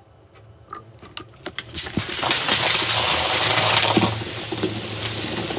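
A few small clicks, then about two seconds in, carbonated cola foams up and sprays out of a plastic bottle with a loud fizzing hiss that eases a little near the end.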